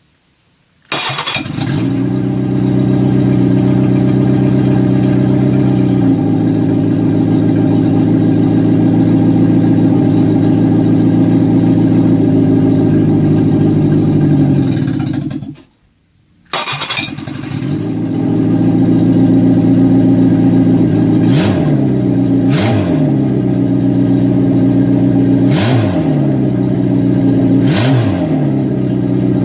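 Reliant Fox four-cylinder engine, run on the floor out of the car, fires up from cold about a second in and runs loudly and steadily on the fuel in its carburettor float bowl. It cuts out briefly about fifteen seconds in and is running again a second later, with a few sharp cracks near the end.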